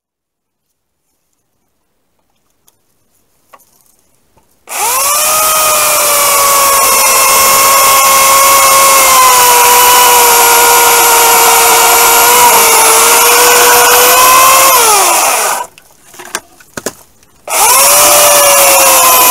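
Husqvarna 316E corded electric chainsaw starting about five seconds in with a rising whine, then running at a steady high whine while cutting into a log, its pitch sagging slightly under load. It winds down and stops, then starts up again near the end.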